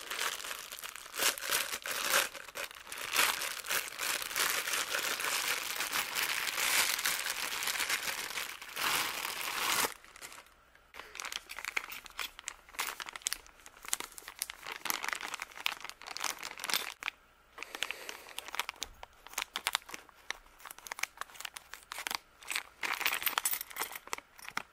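Thin plastic parts bags crinkling and tearing as they are handled and opened by hand. The crinkling is dense for about the first ten seconds, then comes in short scattered rustles and clicks.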